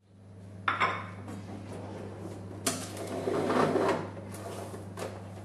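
Handling sounds from a kitchen drawer and a Blum foil and film dispenser: a pair of knocks a little before a second in, then a sharp click followed by about a second of scraping and rustling, and another click near the end. A steady low hum runs underneath.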